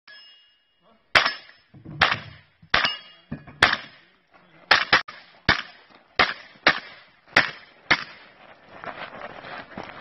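A short steady tone, then about eleven sharp firearm shots at an uneven pace over some seven seconds, two of them in a quick pair, fired during a practical-shooting stage.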